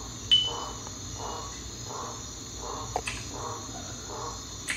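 Crickets chirping steadily in a continuous chorus. A short, high electronic ping sounds just after the start, and a couple of faint clicks follow later.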